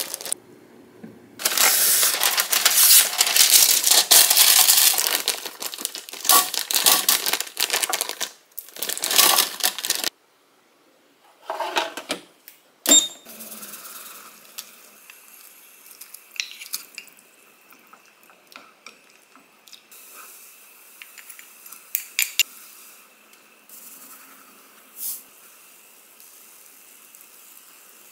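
Plastic zip-top freezer bag crinkling and rustling as it is opened and handled for several seconds. Then, after a couple of sharp clicks, a saucepan of water at a rolling boil, faint, with a few light ticks and taps against the pan.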